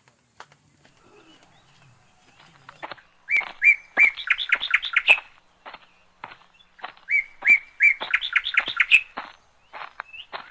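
A songbird singing two similar phrases, each a few evenly spaced notes followed by a quick run of notes climbing higher, with a pause of about two seconds between them.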